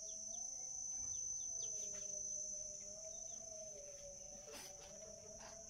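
Steady high-pitched insect drone, with short bird chirps over the first two seconds and a faint low hum that wavers slowly in pitch.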